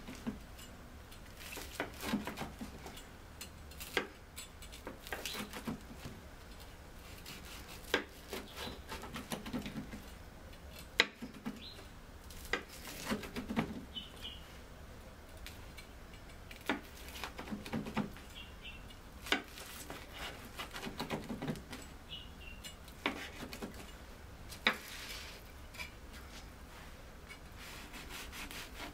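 Kitchen knife slicing fried halloumi on a plastic cutting board: repeated strokes, each ending in a sharp tap of the blade on the board, a second or two apart.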